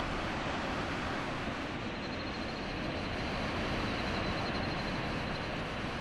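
Steady outdoor rushing noise with no distinct events, and a faint thin high whine in the middle for about three seconds.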